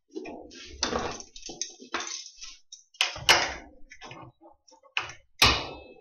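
Thin sheet metal being flexed and bent by hand over the edge of a workbench, rattling and crackling as it moves, with sharp bangs about three seconds in and again near the end.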